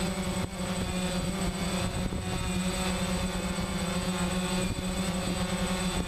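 DJI Phantom quadcopter's motors and propellers buzzing steadily as it flies low, close up from its onboard GoPro, with a thin high-pitched whine above the buzz.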